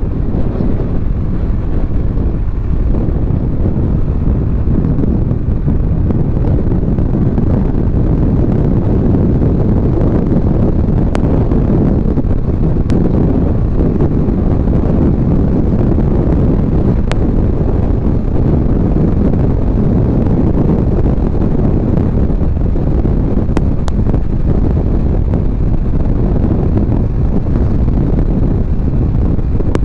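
Steady wind noise rushing over the microphone while a Suzuki Burgman Street 125 scooter is ridden at full throttle on a top-speed run, climbing to about 95 km/h, with the scooter's running mixed in underneath.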